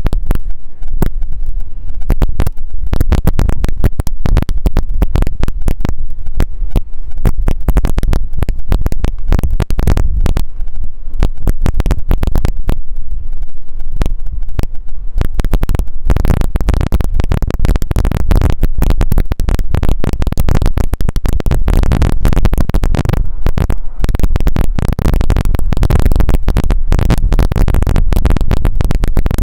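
Heavy wind buffeting on the microphone: a loud, overloaded low rumble full of crackling. A steadier rushing noise fills in from about halfway.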